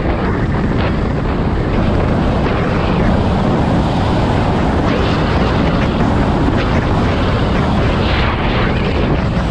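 Wind buffeting a helmet-mounted microphone while riding an electric scooter: a loud, steady rush with no distinct tones.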